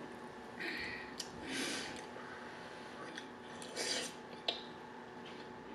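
Quiet eating sounds from a fork working through saucy noodles in a plastic takeout bowl: a few short scrapes and a click, with a brief slurp as a forkful of noodles is sucked in about four seconds in.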